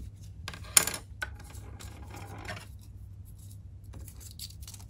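Handling of a clear plastic deli cup: a sharp plastic click about a second in, then rubbing and scraping against the cup, with a few light ticks near the end.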